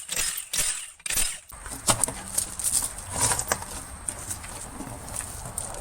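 Hand ratchet with a 7/8 socket clicking in short, even strokes on a truck wheel's lug nuts, about two to three clicks a second for the first second and a half. Then come looser metallic clinks and handling noise as the nuts come free.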